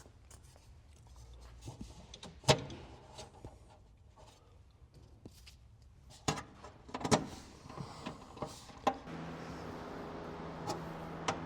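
Scattered knocks and clicks from handling parts of a motorised cart, then about nine seconds in a steady low hum sets in and holds.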